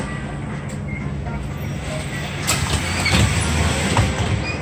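Inside a city bus: the engine's steady low hum with road noise and rattling, and a couple of sharp knocks about halfway through and near the end.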